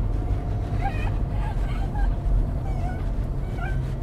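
Inside a moving car, a steady low road and engine rumble, with a West Highland terrier whining in short, faint, wavering high squeaks throughout.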